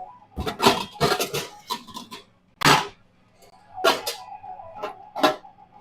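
Kitchen clatter: a series of separate knocks and clanks as utensils, dishes and containers are handled and set down, with a faint steady hum beneath.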